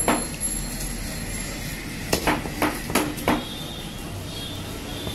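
A heavy knife chopping a tilapia on a wooden chopping block: a sharp knock at the start, then a quick run of five chops about two seconds in.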